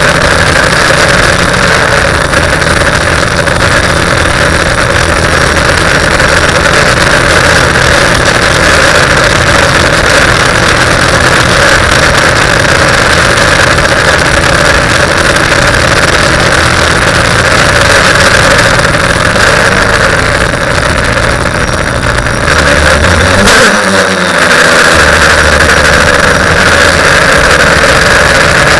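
TBS Discovery quadcopter's electric motors and propellers running steadily in flight, a loud constant drone. About five seconds before the end there is a short sharp knock, and the drone's pitch wavers for about a second.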